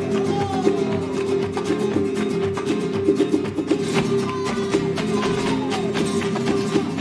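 Flamenco music with guitar.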